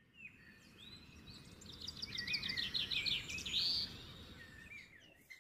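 Small aviary finches chirping and singing: a quick run of high chirps and a short trill about two seconds in, over a low steady rumble.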